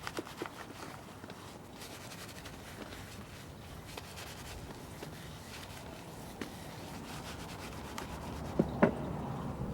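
Brush rubbing beef tallow soap into the leather of a Western saddle, a steady scrubbing, lathering it the way one lathers for shaving. A couple of brief knocks come near the end.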